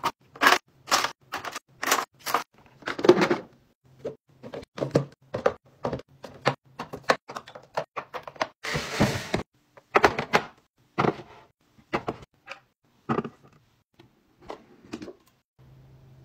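Makeup items and toiletries being set down and shuffled into clear plastic organizer bins, a quick run of clacks and knocks of hard plastic on plastic. A brief rushing noise comes about nine seconds in.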